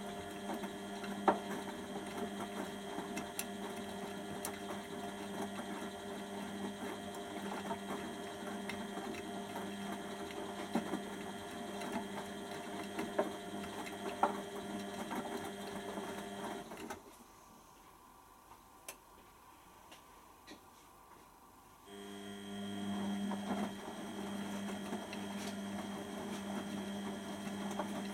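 Beko WTB741R2A washing machine's drum motor hums steadily as it tumbles a wet load during the wash, with occasional light clicks. About 17 seconds in, the motor stops and the drum rests for about five seconds before it starts again.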